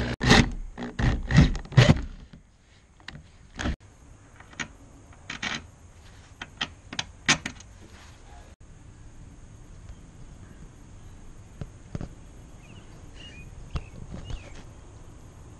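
A cluster of loud knocks and rattles in the first two seconds, then scattered light clicks and taps as metal shavings are brushed off a freshly drilled rack bracket.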